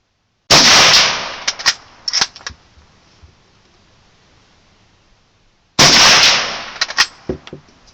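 Two shots from a Gewehr 98 Mauser rifle in 8mm Mauser, about five seconds apart. Each loud report dies away over about a second and is followed by a few fainter sharp clicks.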